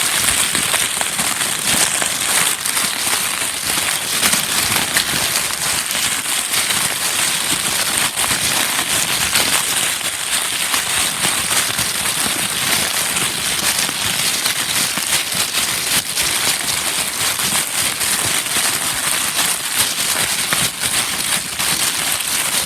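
Continuous dense crackling: a steady stream of many tiny clicks over a bright, high hiss.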